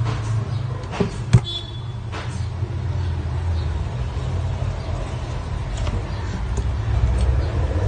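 A steady low rumble, with two sharp clicks about a second in, the second one the loudest.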